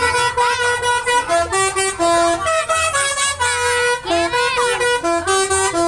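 Basuri 'telolet' multi-tone musical horn on a Dewi Sri bus: a held horn note, then from about a second in a quick tune of stepping notes that repeats.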